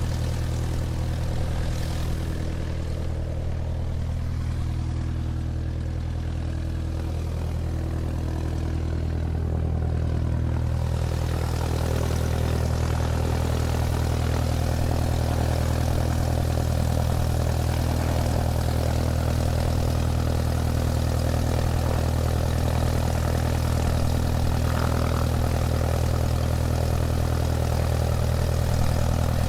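Airplane engine running steadily at takeoff power with an even low drone. A rushing noise builds and the sound grows a little louder about ten seconds in.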